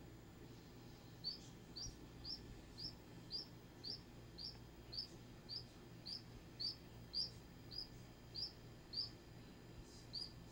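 A duckling peeping steadily: short, high peeps about twice a second, each dipping slightly in pitch, starting about a second in and running until near the end.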